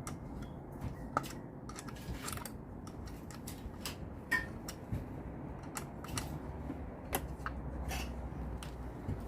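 Scattered small clicks and ticks of hand tools and small parts being handled during motorcycle headlight repair, the sharpest about four seconds in, over a low steady hum.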